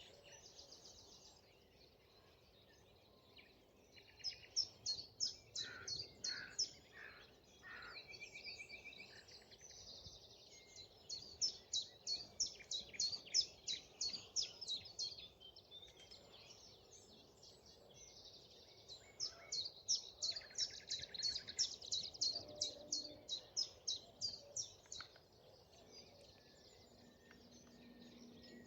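Common chiffchaff singing: three runs of quick, high, repeated notes, each lasting several seconds, with a few lower calls from other birds between them.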